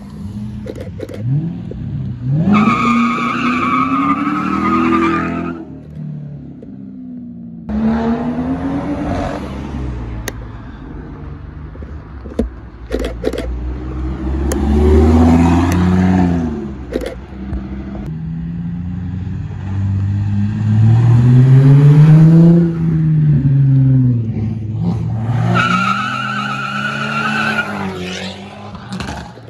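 A run of performance cars, among them a Shelby Mustang, an Audi R8 Spyder and a BMW M3, pulling away one after another. Each engine revs up and falls back as the car passes, and the loudest pull comes about three quarters of the way through.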